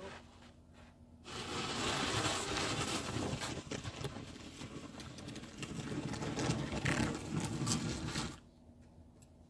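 Snow shovel scraping along paved ground as it pushes snow, in one long noisy stretch of strokes that starts about a second in and stops shortly before the end.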